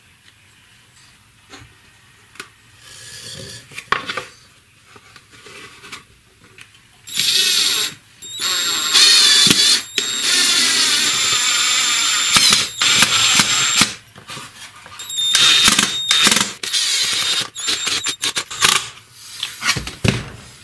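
Power drill driving screws through a black plastic flange into a blower base, in several runs of a few seconds each with short stops between them, beginning about a third of the way in after some light handling knocks.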